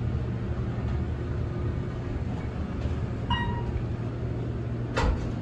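Passenger elevator car running with a steady low hum. A single chime sounds about three seconds in, and a sharp clunk comes near the end as the car arrives.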